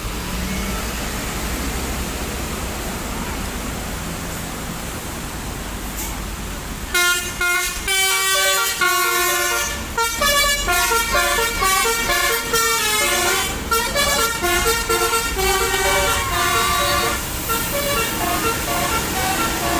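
Bus telolet air horn (Basuri horn with DAV module) playing a fast melody of changing notes, starting about seven seconds in and running for about ten seconds. Before it there is steady vehicle engine and road noise.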